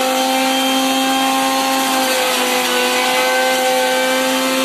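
Electric juicer's motor running steadily while juicing green grapes: a loud, even whine over a whirring hiss, its pitch sagging slightly about two seconds in.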